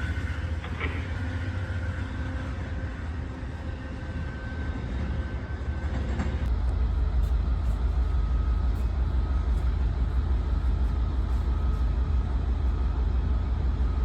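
Train running by with a steady low rumble that grows louder about six and a half seconds in.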